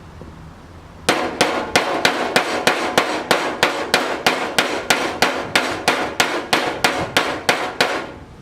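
Steady hand hammering on car-body sheet steel, about three blows a second, starting about a second in and stopping shortly before the end.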